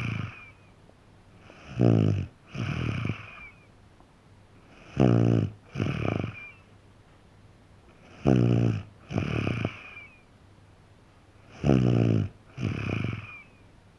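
A small child, a boy of three and a half, snoring in his sleep: four breaths about every three seconds. Each is a loud pitched snore followed at once by a softer second snore, with quiet between breaths.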